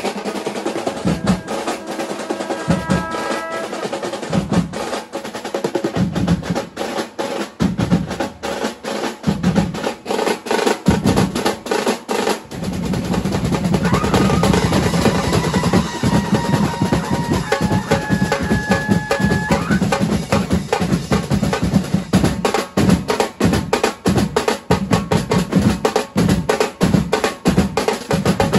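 A troupe of drummers plays a fast, driving rhythm with rolls on snare-type side drums and bass drums. The bass drums come in heavier about halfway through, and a few short held tones sound briefly over the drumming.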